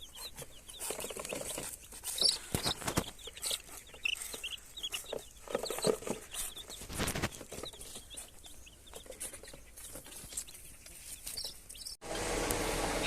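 Baby chicks peeping: scattered short, high chirps with light knocks and rustling among them. Near the end the sound cuts abruptly to a louder, steady hum.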